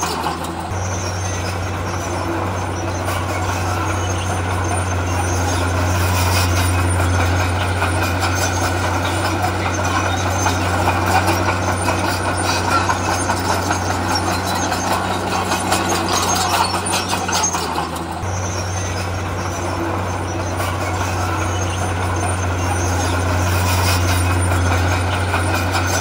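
Heavy diesel construction machinery running steadily with a deep engine drone and mechanical noise. The sound shifts abruptly about a second in and again about 18 seconds in.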